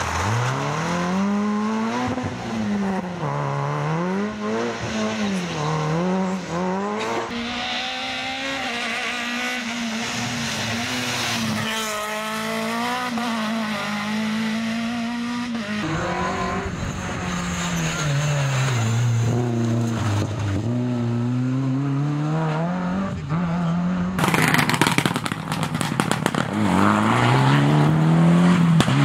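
Rally car engines at racing speed, one car after another: a Peugeot 106 rally car revving hard, its pitch rising and dropping sharply with lifts and downshifts through a corner, then other cars braking and accelerating hard. Near the end a loud rushing noise joins the engine.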